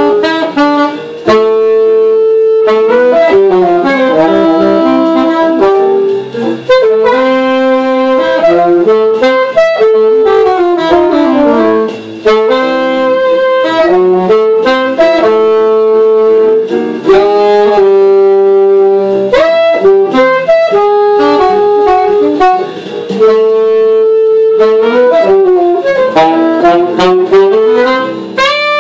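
Alto saxophone playing a jazz line in quick runs of notes, in phrases broken by short pauses for breath.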